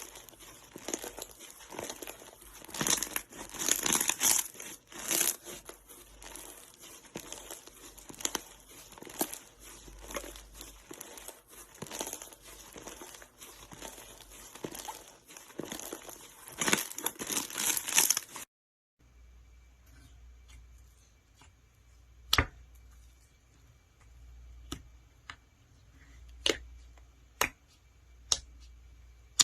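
Slime being squished and stretched by hand, a dense run of crackling and crinkling. About two-thirds of the way through the sound cuts off abruptly, and a quieter stretch follows with scattered sharp pops and clicks.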